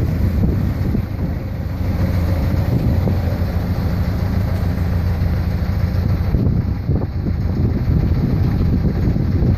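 Small boat's engine running with a steady low drone, under wind buffeting the microphone and the rush of water.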